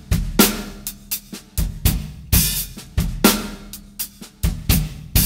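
Acoustic drum kit playing a halftime shuffle groove slowly: a shuffle pattern on the hi-hat, bass drum, and a snare backbeat, with light ghost strokes in between.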